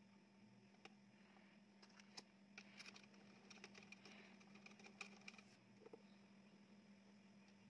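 Near silence: faint scattered clicks and taps of hands handling the radio's knobs and parts, over a faint low steady hum.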